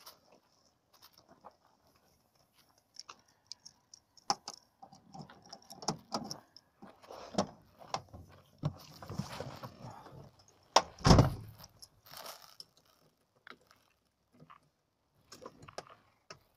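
Rustling and clicking of a handheld phone as someone climbs into a car, then a car door shutting with a heavy thud about eleven seconds in.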